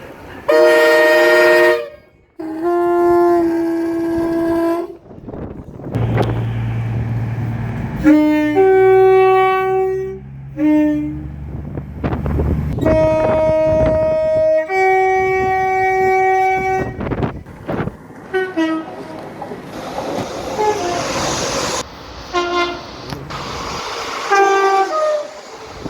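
A string of train horn blasts, each a chord of several notes sounding together, the chords differing from blast to blast. Several are held for one to two seconds, then a run of shorter toots follows in the last third. A low engine rumble runs under the horns in the middle stretch.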